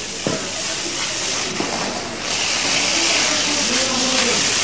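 Voices of several people talking indistinctly over a steady loud hiss that grows louder about halfway through, with a single sharp knock just after the start.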